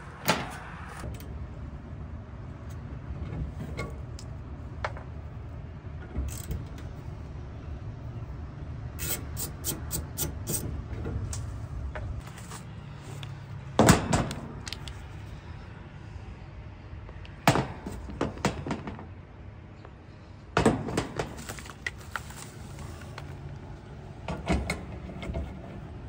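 Goodman heat pump running with a steady low hum, with its low-pressure switch wire just reconnected so it can start. Short knocks and clicks of handling come and go over it, the loudest about halfway through.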